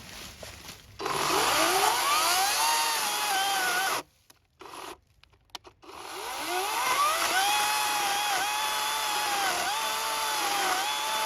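Ego 18-inch battery chainsaw's electric motor spinning up with a rising whine about a second in, cutting off about four seconds in, then spinning up again and running steadily under load, its pitch dipping briefly a few times as the chain rips along dry oak.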